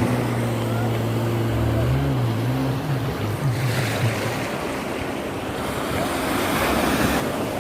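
Motorboat engine running, its pitch wavering up and down for the first few seconds, then giving way to a noisy wash of surf and wind.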